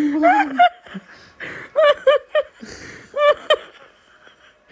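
A person laughing in short, high-pitched bursts: a rising vocal sound at the start, then a run of about three laughs and, a second later, two more.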